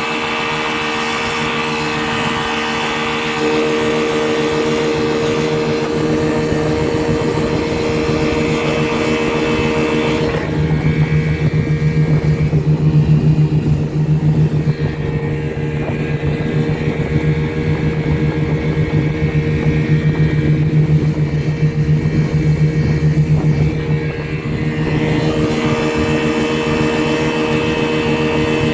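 1978 Chrysler 15 hp two-stroke outboard motor running steadily under way on a boat. About ten seconds in, its sound turns duller and lower for some fifteen seconds, then turns brighter again near the end.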